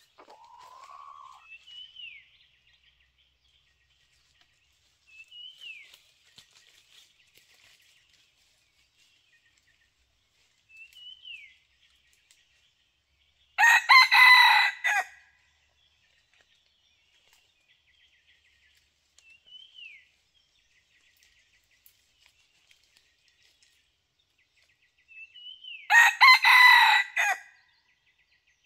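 Red junglefowl rooster crowing loudly twice, about twelve seconds apart. In between, a short, faint chirp repeats every few seconds.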